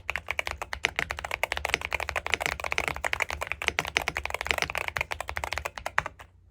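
Fast typing on a Zuoya GMK67 mechanical keyboard with MMD Holy Panda V2 tactile switches (55 g), a dense run of keystrokes that stops about six seconds in.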